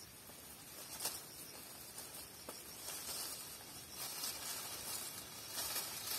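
Guava tree leaves and twigs rustling as branches are pulled and handled while picking fruit, with a few light clicks.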